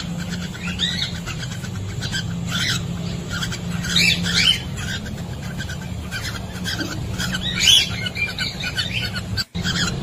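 Breeding pair of cockatiels in their nest box giving short chirps and squawks, the loudest about four seconds in and again near eight seconds, over a steady low hum.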